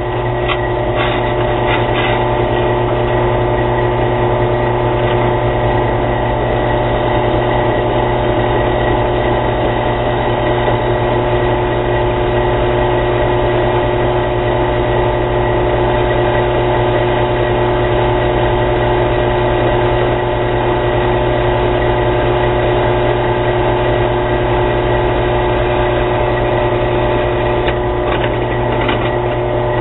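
A cheap benchtop drill press running steadily with a carbide bit drilling a hole through a steel knife blank. The sound is a loud, even motor hum with several fixed tones.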